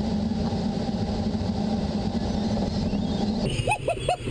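Steady rush of airflow in a glider cockpit. About half a second before the end it gives way to an audio variometer beeping in quick chirps, about four a second, the sign of strong lift in the steam plume.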